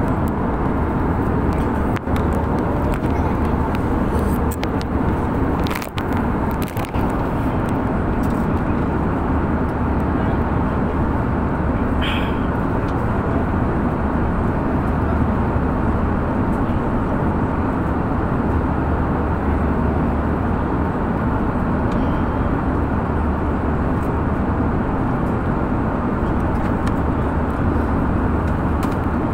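Steady cabin noise inside an Airbus A320neo airliner: a constant rumble of engines and airflow, with a couple of faint clicks about six seconds in.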